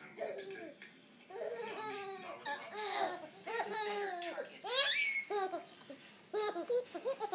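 Babies giggling and babbling in short bursts of laughter, with one loud high squeal a little over halfway through that rises and then falls.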